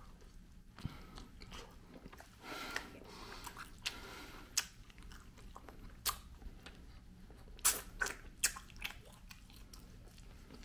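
A person biting into and chewing barbecue rib tips close to the microphone, with a scattering of short, wet mouth smacks.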